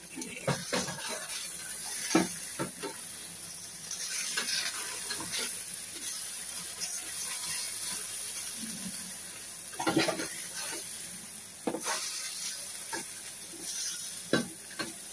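Potato strips sizzling in hot oil in a metal pan, with a steel spatula scraping and knocking against the pan as they are turned. The sharpest knocks come about two seconds in and around ten seconds in.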